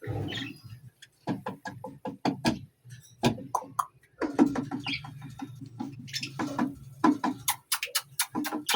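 Background music with a quick, clicking percussive beat and short pitched notes.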